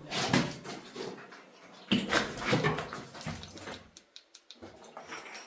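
Irregular scuffs and rustling of people clambering down over loose rock, in a few uneven bursts.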